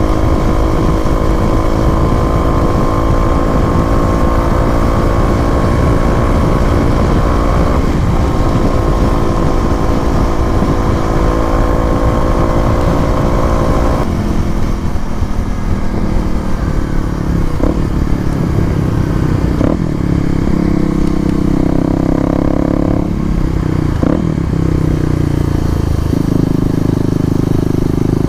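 Kawasaki KLX250 single-cylinder engine running through an FMF Q4 exhaust. It holds a steady high pitch for about half the time, then drops lower and rises and falls, with a few sharp pops.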